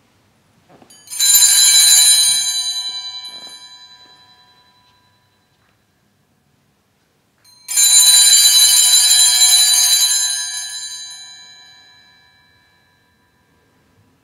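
Sanctus bells (a cluster of small altar bells) rung twice, about a second in and again nearly eight seconds in; each peal of several high, bright tones rings for a second or two and fades over several seconds. The peals mark the consecration of the Host, the second coming with its elevation.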